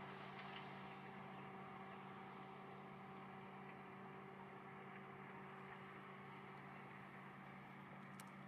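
Faint, steady machinery hum: an even drone with several fixed tones that never changes in pitch or level. A brief faint click comes near the end.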